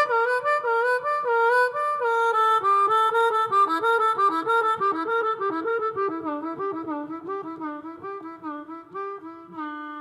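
Blues harmonica playing an instrumental melody: a run of quick, bending notes that grows quieter and settles into a long held note near the end.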